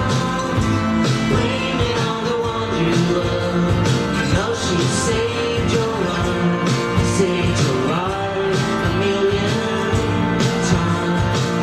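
A small indie-pop band playing a song live, with guitar strumming, keyboard, and voices singing the melody.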